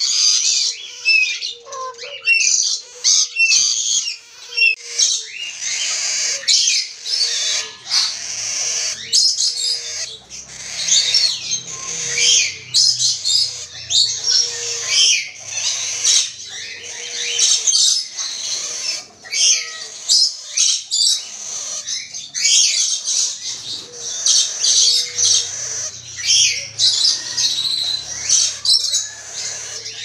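Birds calling nonstop in a rapid stream of short, high-pitched chirps and squawks, from the black-capped lories and their chick. A low hum joins about a third of the way in, drops out, and comes back for the last few seconds.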